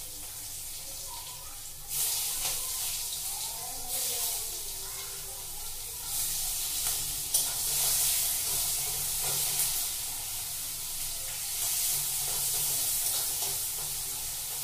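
Food frying in a steel wok, a steady hiss of sizzling that swells a few times as it is stirred with a spatula, with a brief click about seven seconds in.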